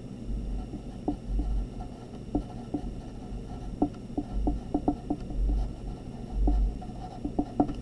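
Pencil writing on paper: a run of short scratches and taps from the lead, with dull low thumps now and then from the paper and desk under the writing hand.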